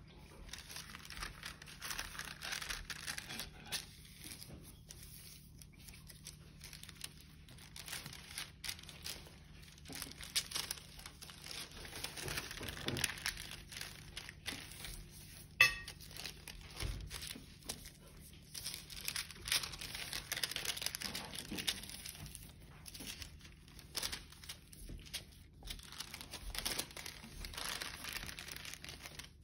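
A sheet of paper being folded and creased by hand, rustling and crinkling in stretches with small taps. One sharp click with a brief ring about halfway through is the loudest sound.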